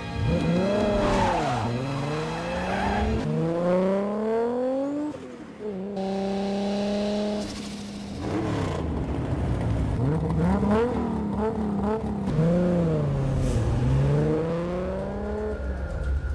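Toyota Supra's inline-six engine and exhaust revving hard as it accelerates through the gears. The pitch climbs in long pulls and drops back at each shift, with a few seconds of steady cruising about six seconds in.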